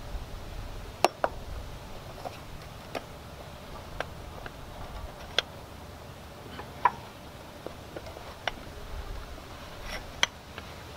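Irregular small metallic clicks and ticks as a knurled metal retaining ring is fitted and threaded by hand onto a tractor fuel filter's sediment bowl, about a dozen in all, the sharpest about a second in, near the middle and near the end.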